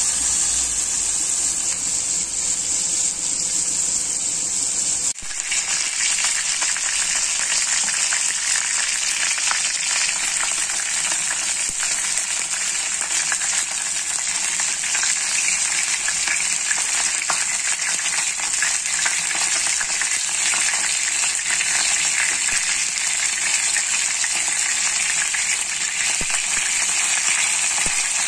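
Cornstarch-coated chicken wings sizzling in hot oil in a wok: a steady hiss with fine crackling. It cuts off for an instant about five seconds in, then goes on with more crackle.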